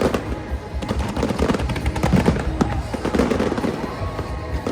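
Fireworks bursting and crackling in rapid, irregular reports over a musical soundtrack.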